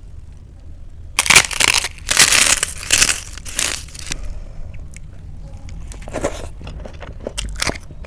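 Close-miked crunching of food being bitten and chewed: a run of loud crunches for a few seconds about a second in, then softer clicks of chewing.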